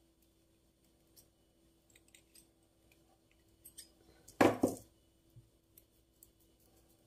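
Light snips of thin copper-coloured wire being cut with wire-cutting pliers, a few small clicks, then a louder short rustling thump about four and a half seconds in.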